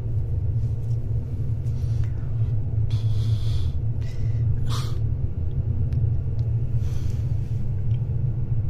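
Steady low rumble and hum of a ship's running machinery heard in a pipe tunnel below decks, with a couple of brief rustling noises about three and five seconds in.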